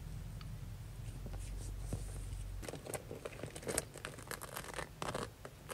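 Light tapping, clicking and rubbing of fingernails on a plastic lotion bottle and a patent-leather purse, starting about two and a half seconds in. Before that, a low steady hum that cuts off suddenly.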